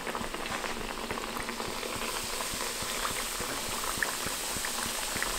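Fry jack dough frying in a skillet of hot oil: a steady bubbling sizzle with many small crackles.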